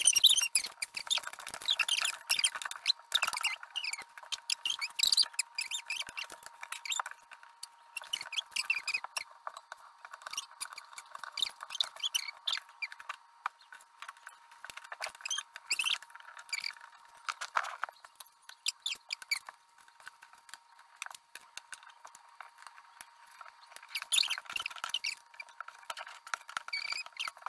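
Cardboard jigsaw puzzle pieces being handled on a wooden table: a quick, dense run of light clicks, taps and slides as pieces are turned over, dropped and pressed into place, with a faint steady high hum underneath.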